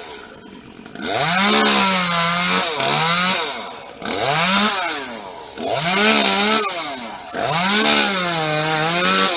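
Chainsaw cutting eucalyptus wood in about five bursts: the engine revs up quickly, its pitch sags as the chain bites, then drops back toward idle between cuts.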